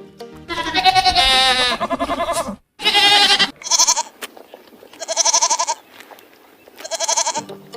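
Goat bleating: a series of about five wavering calls, the first the longest and the later ones shorter.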